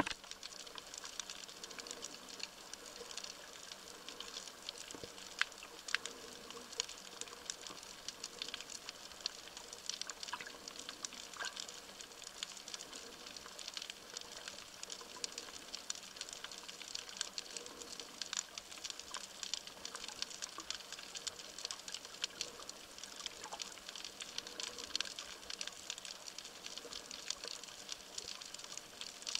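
Underwater ambience picked up by a submerged camera over a seagrass bed: a dense, steady crackle of fine clicks and ticks, with a few sharper clicks standing out.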